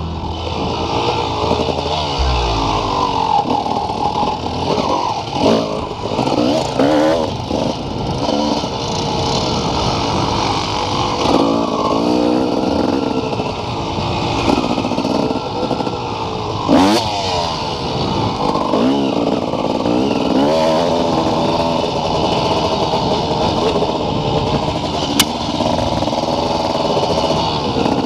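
Dirt bike engine revving up and down as it is ridden, its pitch climbing and dropping again every second or two. Music with a bass line carries on briefly at the start and stops about two seconds in.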